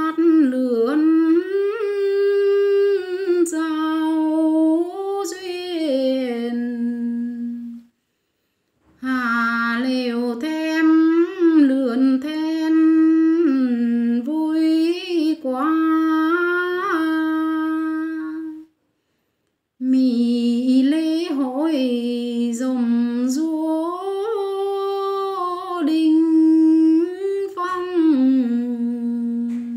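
A woman singing solo without accompaniment: a slow melody of long held notes that slide up and down. It comes in three phrases, with brief pauses about 8 and 19 seconds in.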